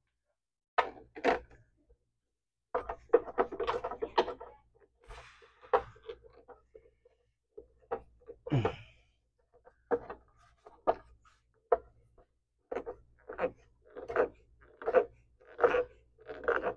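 Short squeaking, scraping strokes of metal on metal, about one or two a second, as a hand tool is forced through a rust-clogged hole in a miter saw. About eight and a half seconds in there is one falling creak.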